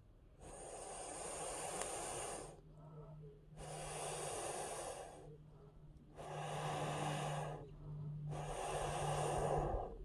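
Four long, hissing breaths out, each lasting about two seconds with short pauses between them.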